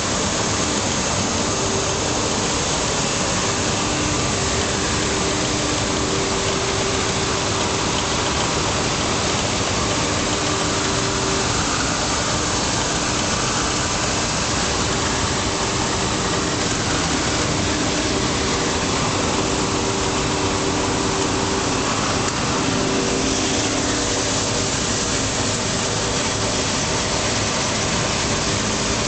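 Steady machinery noise of a running bubble-film sheet extrusion line: an even, hiss-like din with a faint steady hum that fades in and out.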